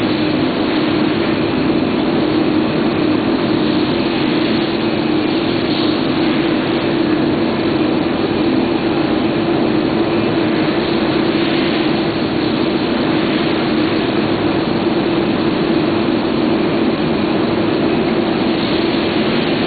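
Electrostatic coating line machinery running steadily: a constant hum over an even hiss, with no change in level.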